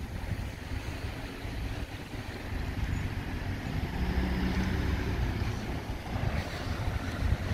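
Low, steady rumble of a vehicle engine idling.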